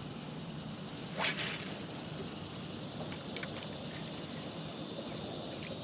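A fishing rod swishes through the air once, about a second in, over a steady high outdoor hiss, with a light click a couple of seconds later.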